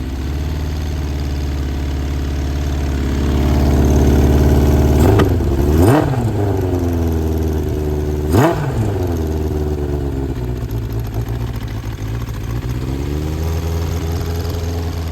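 Honda CB900F air-cooled inline-four, bored out to 985cc, running through a Vance & Hines exhaust while it warms up from a cold start without choke. It idles unevenly, with two quick throttle blips about five and eight seconds in, each sending the revs up and straight back down.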